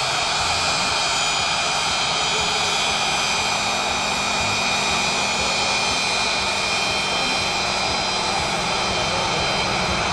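Aircraft turbine engine running steadily: a constant rushing roar with a high, steady whine of several tones over it, not rising or falling.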